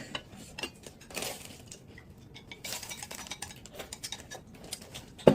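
Dishes and cutlery at a meal: scattered light clinks and short scraping sounds, with one louder knock of tableware near the end.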